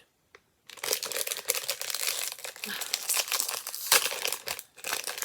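A blind-box mini figure's packaging crinkles and tears as it is opened by hand. The dense crinkling starts under a second in.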